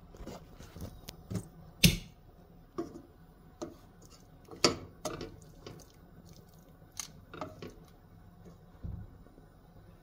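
Silicone-tipped kitchen tongs handling sauce-coated bok choy in a stainless steel frying pan: irregular clacks and knocks against the pan, the loudest about two seconds and about five seconds in.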